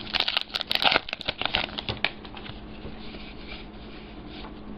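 Trading cards being handled and flipped through: a quick run of light clicks and rustles in the first two seconds, then fainter rustling.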